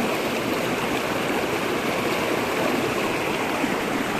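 Fast-flowing mountain river rushing over rocks: a steady, close-up rush of white water.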